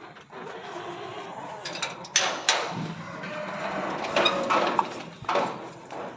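A few sharp knocks and rattles over rustling noise, the loudest about two seconds in, with more around four and five seconds in.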